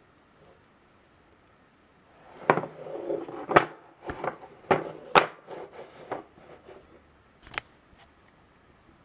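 Handling noise as a leather belt is laid down and coiled on a wooden desk: rustling with a run of sharp taps and knocks, the loudest about two and a half and three and a half seconds in.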